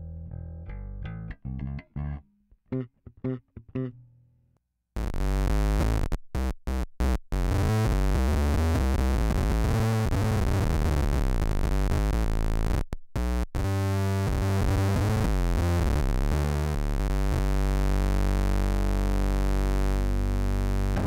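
Electric guitar played through an EarthQuaker Devices Bit Commander analog octave-synth pedal. It starts with a few short single notes, then after a brief pause comes a loud, dense synth-like tone with deep sub-octave bass that cuts out abruptly several times.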